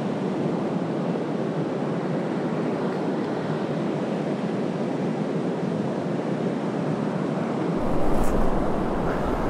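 Small waves breaking and washing up a sandy beach in a steady hiss of surf. From about eight seconds in, wind buffets the microphone and adds a low rumble.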